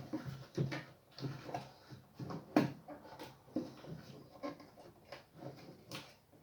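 Irregular light clicks and knocks, a few a second, from handling parts while taking apart a Logitech Z313 subwoofer.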